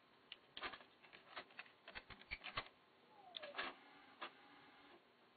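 Irregular mechanical clicks and clunks from the tape transport of a Pioneer T-818 cassette deck, about a dozen in all and bunched most tightly a couple of seconds in.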